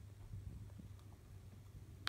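Near silence: a faint steady low rumble, with one faint tick about halfway through.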